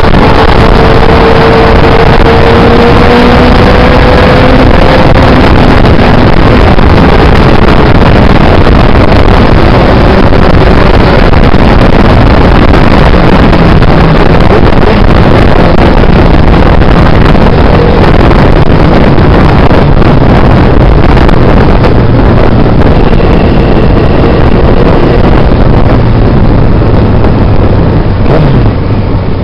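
Yamaha FZR600's inline-four engine running at road speed, largely buried under loud wind rush on the microphone. A faint engine note rises over the first few seconds, and the rush eases slightly near the end.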